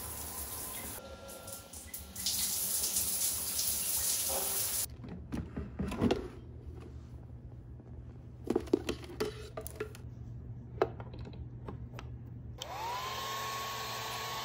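Running water for the first few seconds, then a series of clicks and knocks as a drawer is opened and a compact hair dryer is handled. Near the end the hair dryer is switched on: its motor whine rises quickly and then holds steady over the rush of blown air.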